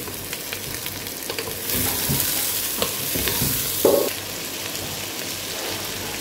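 Chopped vegetables sizzling in hot oil while being stirred with a wooden spoon. The sizzle grows louder for a couple of seconds from about two seconds in, and a few knocks come through it.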